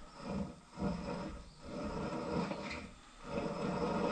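An old hand-cranked drill turning a bit into steel, grinding and whirring in uneven surges as the crank is turned, with short breaks about a second in and again near three seconds.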